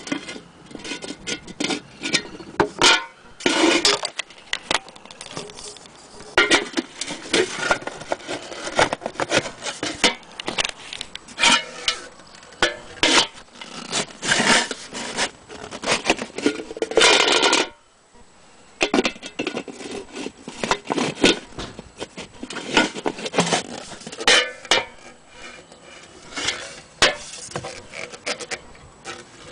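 Antique Issenola radio horn of painted sheet metal being handled and turned over: irregular rubbing, scraping and light knocks on the metal, stopping briefly about two-thirds through.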